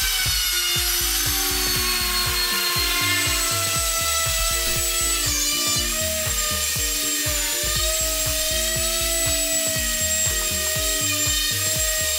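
A power tool whine under background music with a steady beat. It starts higher as a trim router cuts the edge of a hardwood stair tread. About five seconds in it drops to the lower, steady hum of a random orbital sander smoothing the tread's face.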